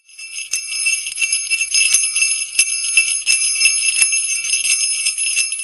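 Jingle bells shaken steadily, fading out near the end.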